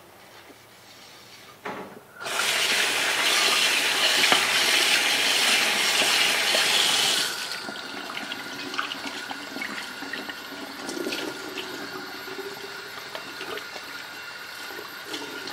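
Kitchen tap water splashing into a sink: it comes on about two seconds in and runs hard for about five seconds, then drops to a gentler flow with small clicks from the plate being washed.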